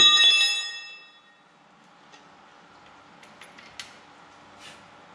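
A sharp metallic clang that rings with several clear tones and fades over about a second, followed by a few light metal clicks and taps from tools being handled.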